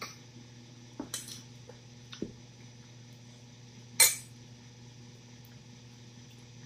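A few short clinks and clatters of dishes and cutlery at a meal, the loudest about four seconds in, over a steady low hum.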